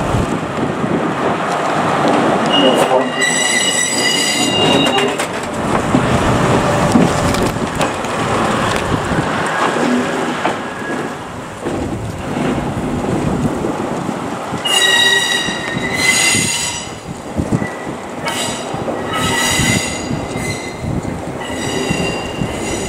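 Train wheels squealing on curved depot track: high, ringing squeal about three seconds in, then again in several bursts from about fifteen seconds in to near the end, over a continuous rumble of the train running on the rails.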